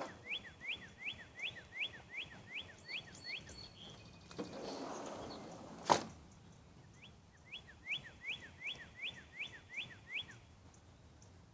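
A bird singing runs of repeated rising whistled notes, about three a second, pausing for a few seconds midway. In the pause there is a short hiss, then a single sharp click about six seconds in, the loudest sound.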